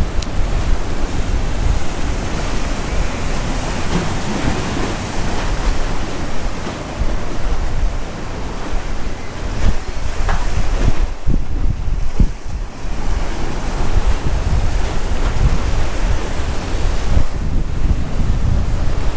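Sea surf washing against a breakwater's concrete tetrapods, a dense steady rush, with wind buffeting the microphone in a heavy low rumble.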